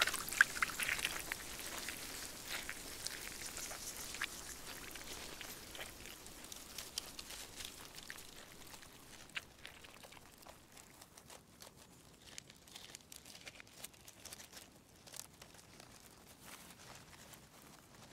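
Faint forest field recording: scattered small ticks and crackles over a soft hiss, slowly fading away.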